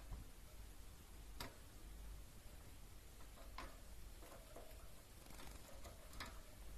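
Faint scattered ticks and three sharper clicks, from pet budgerigars shifting and preening on a wooden perch in a wire cage, over a low steady hum.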